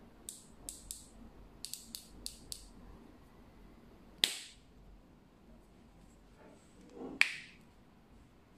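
Riflescope turret clicks on an ohhunt Guardian 1-6x24, set at 1/5 MIL per click: a quick run of about eight light detent clicks in the first three seconds, then two much louder sharp snaps about three seconds apart.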